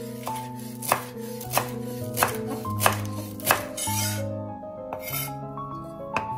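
Chef's knife chopping fresh parsley on a bamboo cutting board: five sharp strikes about two-thirds of a second apart in the first half, then lighter cuts, over background music.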